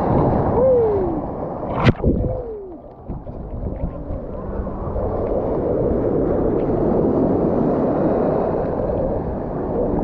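Sea water sloshing and gurgling, heavily muffled, with a sharp splash or knock about two seconds in; the sloshing builds up again after about four seconds and stays steady.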